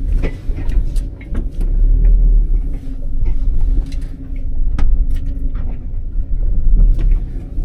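Low rumbling that swells and fades, with scattered sharp clicks and light knocks.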